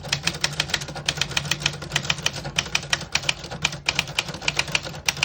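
Smith-Corona Cougar manual portable typewriter being typed on, its type bars striking the platen in quick, even succession at about six strokes a second.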